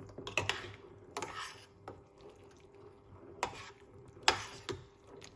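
Crockery and cutlery clinking, with several sharp knocks spread through, and faint liquid sounds from a cup of tea.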